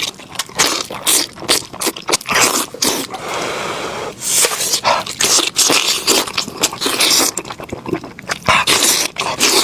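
Close-miked eating of spicy lamb head: wet chewing, gnawing and scraping of meat off the bone in quick irregular strokes, with one steadier stretch of about a second a little before the middle.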